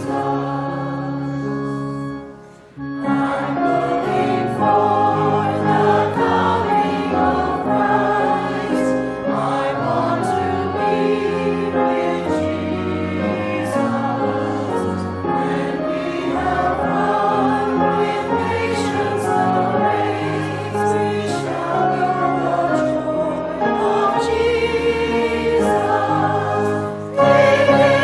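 Choir singing with instrumental accompaniment; the music drops away briefly about two and a half seconds in, then resumes with a new phrase.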